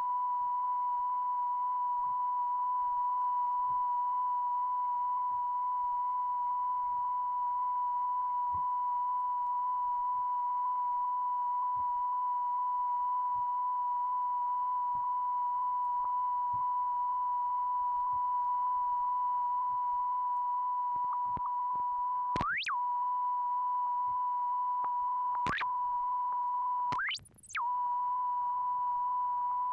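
A steady electronic test tone of one pitch with faint overtones, as recorded on an old tape transfer. About two-thirds of the way in its pitch swoops sharply down and back up, then twice more it glides sharply upward, and near the end it briefly drops out.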